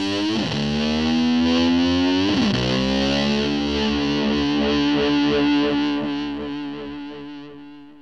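A rock song ends on a distorted electric guitar: the pitch swoops down and back up twice, then a held note rings on and fades out.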